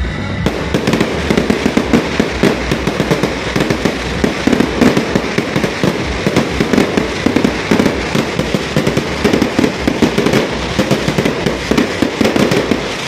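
Fireworks going off in a dense, rapid barrage of sharp bangs and crackles, starting about half a second in and cutting off abruptly at the end.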